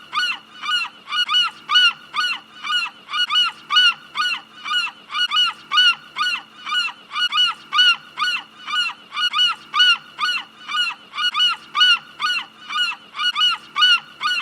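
Seagull giving an unbroken run of short calls, each falling in pitch, about two or three a second.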